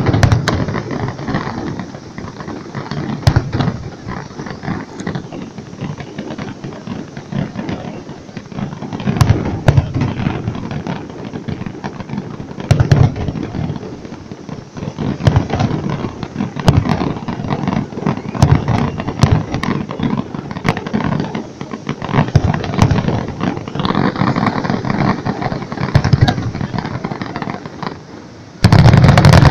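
Aerial fireworks exploding: a dense, irregular run of loud bangs and crackling, several shots a second. About a second before the end the sound jumps suddenly to a much louder, unbroken barrage.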